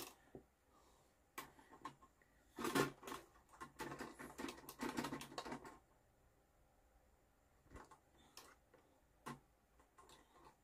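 Light clicks, taps and scraping of hands working on the inner mechanism of an old mechanical weighing scale, adjusting its pointer. The handling is busiest from about three to six seconds in, with a few lone clicks after.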